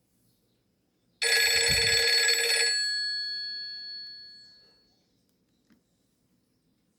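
A Nokia E62 ringtone playing: a bell-like ringing that starts suddenly about a second in, holds for about a second and a half, then fades away over the next two seconds.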